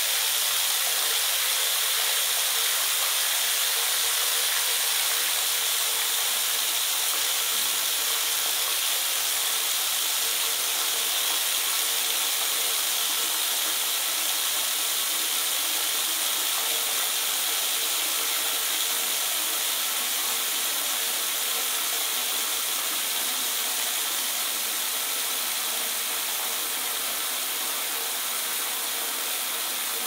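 Bath tap running into a bathtub as it fills: a steady hiss of falling water that gets slowly a little quieter.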